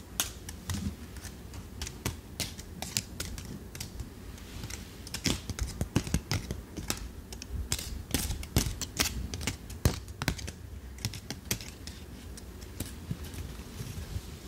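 Yellow autumn leaves on twigs handled and turned close to a microphone, giving irregular crisp rustles and small crackles.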